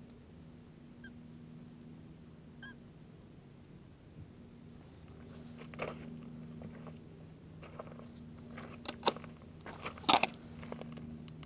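Fledgling American robin close to the microphone: a couple of faint short chirps, then from about halfway a run of sharp clicks and taps, the loudest few near the end.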